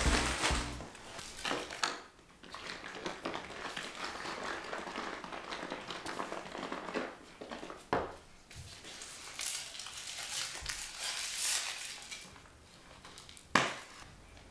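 Plastic rustling and crinkling as a bag and a bubble-tea straw's plastic wrapper are handled, then one sharp pop near the end as the straw is punched through the cup's sealed film lid.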